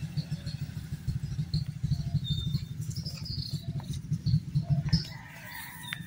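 Low, uneven rumble on the microphone as the phone is carried along, easing off about five seconds in, with a few faint bird chirps.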